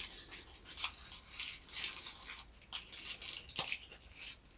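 Packaging being handled and unwrapped: soft irregular rustling and crinkling with a few small clicks as miniature pieces are taken out.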